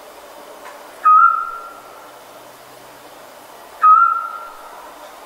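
Scops owl giving its call: two single short whistled notes, about 1 s and 4 s in. Each starts sharply and trails off, over faint steady background hiss.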